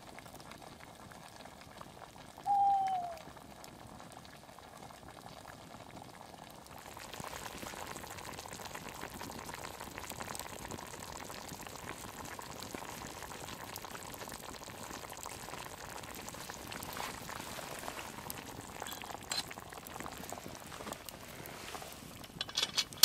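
Cast-iron Dutch oven of beef ribs bubbling in their liquid over a campfire, steady from about seven seconds in. Before that, a single short falling call about two and a half seconds in; a few sharp clicks near the end.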